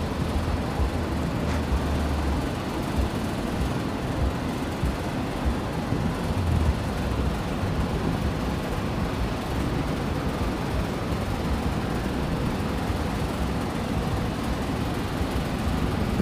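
Wind blowing over the microphone: a steady rushing noise with an uneven low rumble.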